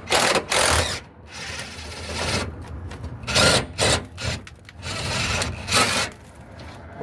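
A fastening tool running in several short, irregular bursts, loosening the last fuel-tank strap fastener.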